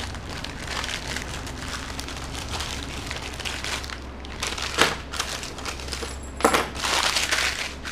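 A pair of real metal handcuffs being handled: rustling and crinkling with sharp metallic clicks and clinks, one about five seconds in and a cluster of them near the end.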